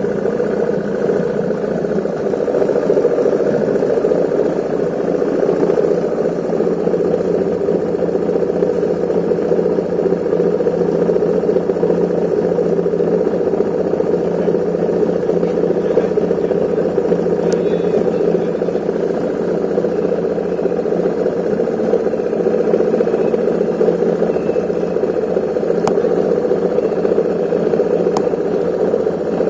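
Motorcycle engine idling steadily, with a few faint ticks in the second half.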